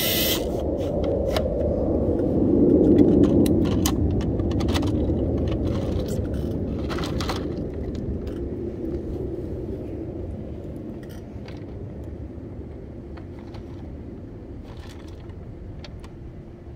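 Scattered plastic clicks and scrapes from a Hot Wheels Color Shifters toy car wash being worked by hand, as a die-cast car is dunked into its water tank and raised again. Under them runs a low rumble that swells a few seconds in and then fades.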